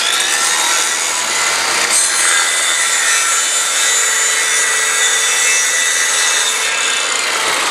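Circular saw running and cutting through wood, a steady loud high-pitched whine, with a small vacuum drawing sawdust from the saw's rear dust port.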